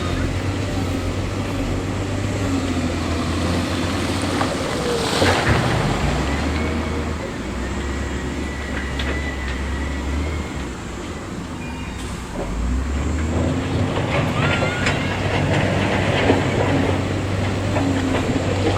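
Heavy diesel construction machinery working: a low, steady engine drone that drops in pitch about six seconds in and climbs back about six seconds later, with scattered metallic clanks and brief squeaks.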